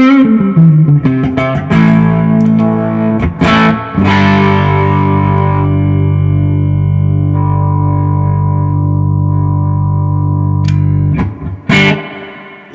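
Duesenberg Starplayer Special electric guitar on its neck pickup, set halfway between single coil and humbucker, played through effects pedals into a Fender '65 Reissue Deluxe Reverb amp. A quick falling run of single notes is followed by two struck chords. The second chord is left ringing for about seven seconds, and two quick strums come near the end.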